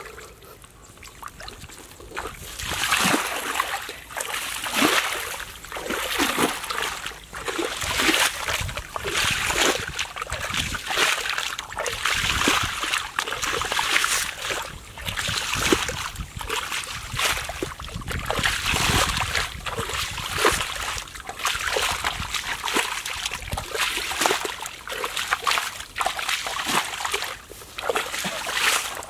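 Shallow muddy water splashing and sloshing again and again as a person wades barefoot and throws water aside by hand, starting about two seconds in with irregular splashes roughly one or two a second.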